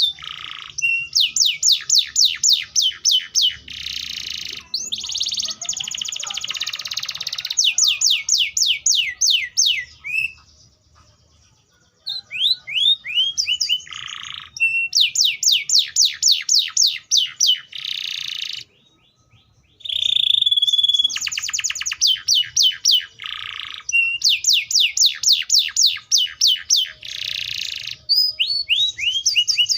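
Canary singing: fast trills of repeated sweeping notes alternating with buzzy, rattling phrases, broken by two short pauses about ten and nineteen seconds in.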